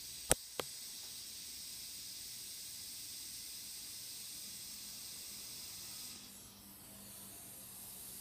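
Steady electronic hiss from an amplifier and speaker with no signal playing. Two sharp clicks sound in quick succession just after the start, and the hiss fades about six seconds in.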